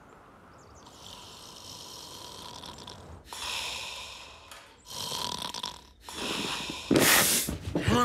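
A cartoon bear snoring in his sleep: a series of long, rasping breaths, the last one, near the end, the loudest.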